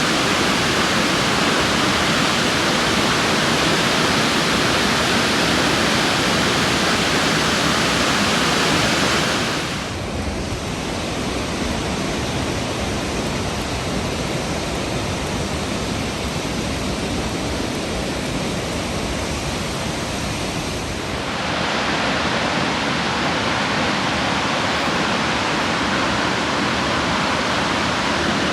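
Burney Falls, a 129-foot waterfall, pouring steadily into its basin with a continuous rush of water. The rush dips slightly quieter and duller about a third of the way through and comes back up about three quarters of the way through.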